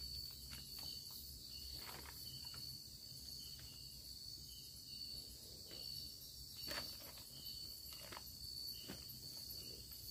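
Night insects buzzing steadily at a high pitch, with faint repeated chirping above, while scattered rustles and light clicks come from someone handling gear under a plastic tarp.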